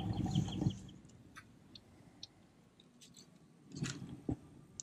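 Faint, scattered clicks and a brief rustle from hands handling fishing line and tackle, with a short run of bird chirps at the start.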